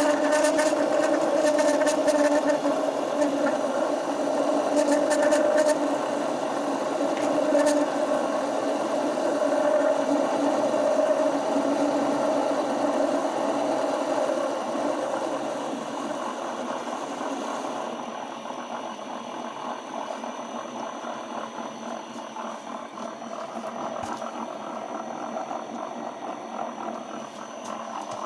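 1D601 bench lathe running, its motor and drive giving a steady whir with a high-pitched tone, with a few light ticks near the start. It gets gradually quieter about halfway through and then runs on steadily at the lower level.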